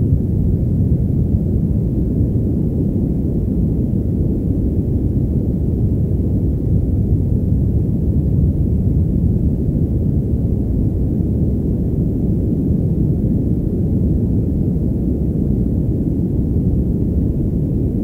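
Steady padded white noise: a muffled, deep rushing hiss with almost no treble.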